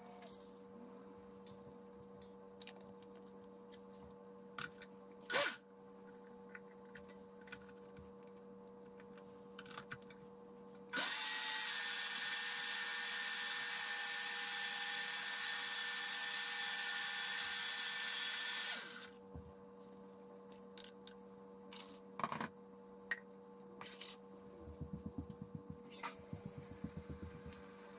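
Countertop blender running steadily for about eight seconds, chopping torn paper scraps into pulp. It starts and stops abruptly.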